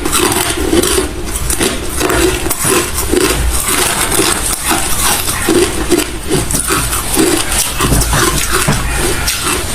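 A person chewing hard refrozen crushed ice close to the microphone: a steady run of loud, crackling crunches with dull thuds from the jaw.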